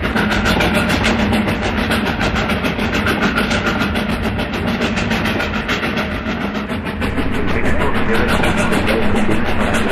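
Shortwave radio reception through a software-defined receiver in upper-sideband mode: a dense, steady wash of static with a low hum and no clear speech, growing a little louder about seven seconds in.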